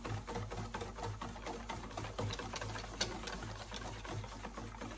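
Wire whisk beating thin crepe batter in a stainless steel bowl: quick, even ticking and scraping of the wires against the metal bowl in a steady rhythm.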